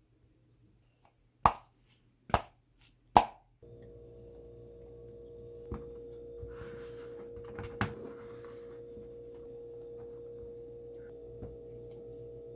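Three loud, sharp knocks a little under a second apart, then a steady humming tone with faint rustling as pastry is pressed by hand into a fluted tart pan.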